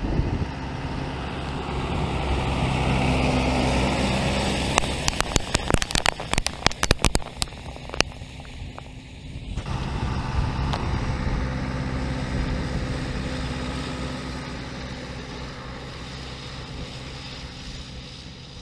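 Small tractor's engine running steadily as it passes close with the fertilizer spreader, swelling for a few seconds and then fading as it moves away. About five seconds in comes a rapid flurry of sharp clicks and knocks, the loudest sounds here, before the engine note returns and slowly fades.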